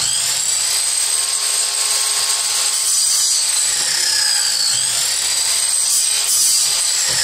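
Electric mitre saw (chop saw) running and cutting a mitre in wood, a steady high motor whine that drops in pitch and recovers a little past halfway and dips again near the end.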